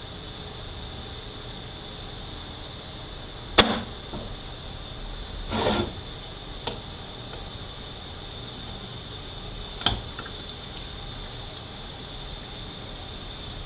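Transmission parts and tools being handled on a workbench during a teardown: a sharp knock, a short scrape, a small click and another knock, over a steady high-pitched hiss.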